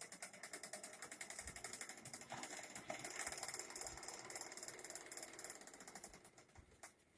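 Geared e-bike hub motor (Q100-type) spinning with a rapid, regular clicking knock from inside the wheel that dies away near the end. The knock is a fault the owner has not yet traced.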